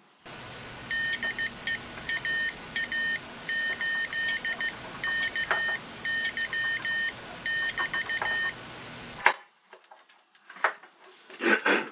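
Morse code radio signal: short and long high-pitched beeps keyed in irregular groups over a steady radio hiss. The hiss and beeps cut off with a click about nine seconds in.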